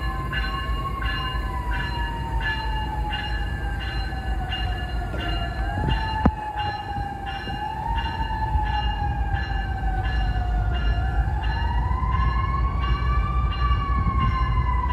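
Locomotive bell ringing steadily, a stroke about every half second, over a low engine rumble during an engine change on an Amtrak train. A whining tone slowly rises and falls throughout, and a single sharp knock comes about six seconds in.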